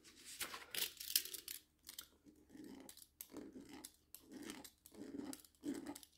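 Faint, irregular scratching and crinkling as a small hand tool is pressed and scraped along the surface of a diamond-painting canvas, with paper rustling under the hands.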